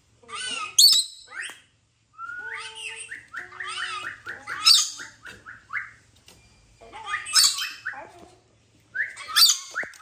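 Rainbow lorikeet calling: harsh squawks broken by two runs of quick, rising chirps at several notes a second, the first about two seconds in and the second near the end.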